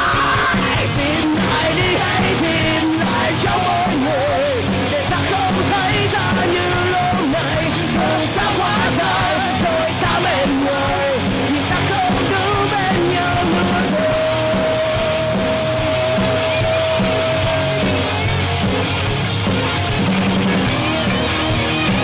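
Live rock band playing loud: electric guitars, bass and drums with a singing voice over them. About two-thirds of the way through, one long note is held for several seconds.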